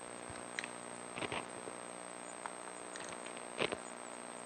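A few faint clicks and light knocks as hands work parts inside an X-ray head's tube housing, the clearest one near the end, over a steady low electrical hum.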